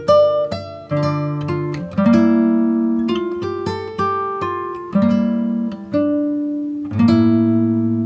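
Background music: an acoustic guitar plucking notes over chords that change every second or two.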